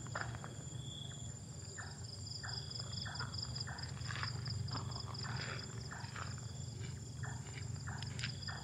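Dusk chorus of crickets and other insects: a rapid pulsing high trill over steadier high-pitched tones, with a low steady hum beneath. Irregular short rustling and shuffling sounds come and go throughout.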